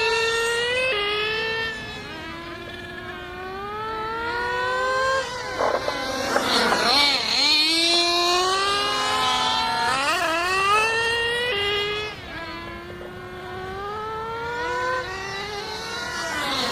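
Small nitro engines of radio-controlled model cars running at high revs. Their pitch climbs as they accelerate and drops as they lift off, and they sweep past close by about every four to five seconds.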